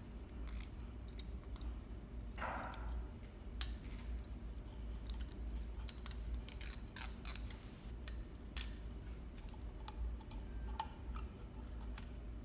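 Light, irregular clicks and taps of hands and tweezers handling thread and the metal thread guides of a Juki MO-6700DA serger during threading, with a brief rustle about two and a half seconds in, over a low steady hum.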